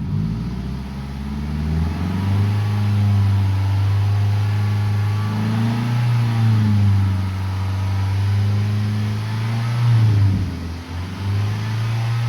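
2003 Toyota Camry engine revved and held at about 3,350 rpm, its exhaust note coming through a newly fitted Magnaflow muffler. The revs rise in the first second or two, hold steady, dip briefly about ten seconds in, then come back up.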